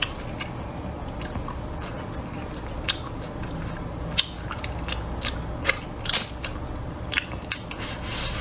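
A person chewing a mouthful of rice and braised meat close to the microphone, with wet mouth smacks and several sharp clicks scattered through.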